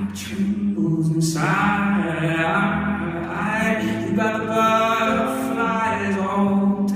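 Live music: singing in long held, wavering notes over a low steady tone.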